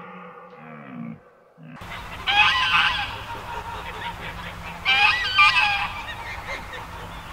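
Canada geese honking in two short bouts of several honks each, about two seconds and five seconds in, over a low steady hum.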